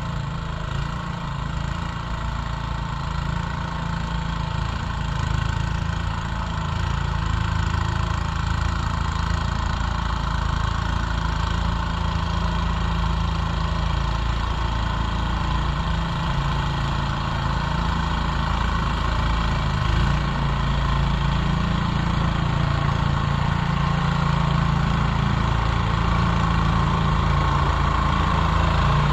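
3.5 hp Briggs & Stratton single-cylinder engine of a 1979 Montgomery Ward (Gilson-built) walk-behind snowblower running steadily while it clears wet snow.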